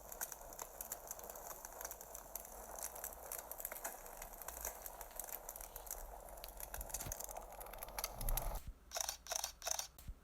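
Dense, irregular mechanical clicking and crackling over a faint hiss, then, near the end, a rapid electronic alarm-clock beeping starts, about three beeps a second.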